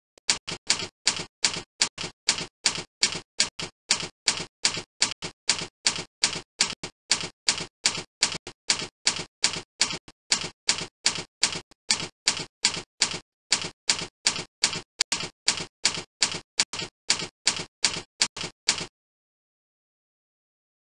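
Typing sound effect: a quick, even run of keystroke clicks, several a second, that stops about two seconds before the end.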